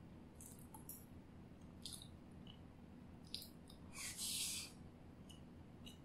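Close-miked eating sounds of a woman chewing a spoonful of turmeric fried rice: soft, scattered wet mouth clicks, with one louder half-second noisy burst about four seconds in.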